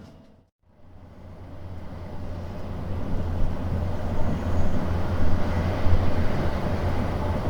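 Running noise inside a JR West 287 series electric train: a steady low hum and rumble of the car on the rails. It drops out briefly just after the start, then fades back up over a few seconds.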